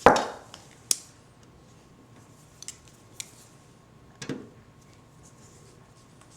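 A loud clank, then a sharp click just before a second in, a few light clicks, and another knock a little after four seconds: a small metal brace and parts of a Roland JD-800 keyboard being handled while the brace is worked back into place.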